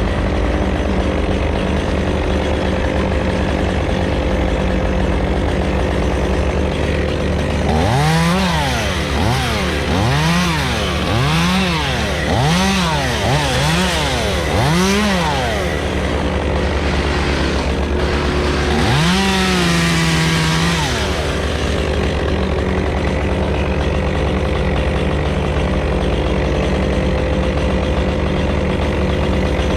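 Stihl chainsaw running at idle, blipped through a quick series of short revs a quarter of the way in, then revved once more and held briefly before dropping back to idle.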